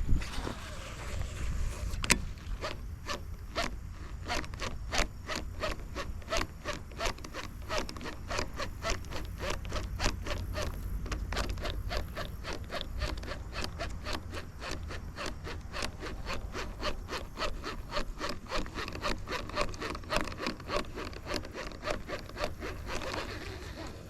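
A fishing reel being cranked steadily to retrieve a cast lure: an even rasping rhythm of about three strokes a second that starts a couple of seconds in and stops near the end, over a low rumble of wind or handling.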